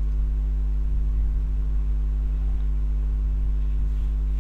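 Steady low electrical hum made of several evenly spaced tones, unchanging throughout.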